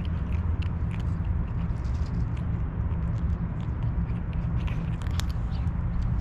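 A tabby cat crunching dry kibble: a quick run of small sharp crunches over a steady low rumble.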